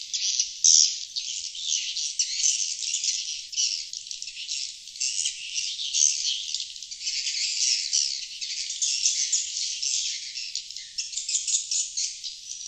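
Lure recording of sriti swiftlets calling: a dense, rapid, high-pitched twittering of many overlapping chirps, swelling and fading in loudness. It is the 'outside call' sound played to attract wild sriti swiftlets to a nesting house.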